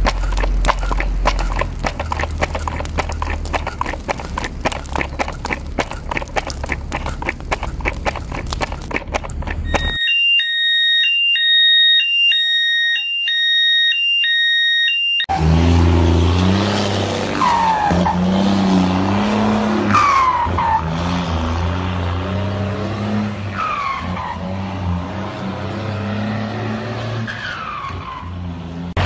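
A fast, even mechanical clatter over a low hum for about ten seconds. Then a few seconds of electronic beeping in a repeating two-note pattern, followed by a car engine running with several short falling squeals like tyre squeal.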